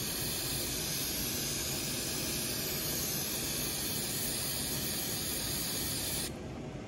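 Aerosol can of ether (starting fluid) spraying in one long, steady hiss that cuts off near the end, washing grime off a hydraulic part.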